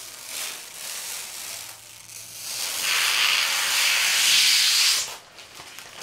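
Protective plastic film being peeled off the tempered-glass side panel of an NZXT H710 PC case: a hissing, rustling noise that grows louder about halfway through and stops suddenly about a second before the end.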